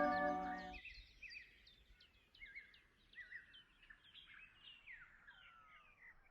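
Background music ending about a second in, followed by faint bird calls: a run of many short chirps and trills.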